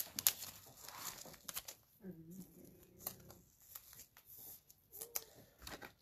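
Faint crinkling and rustling of plastic trading-card wrappers being handled, with scattered light clicks.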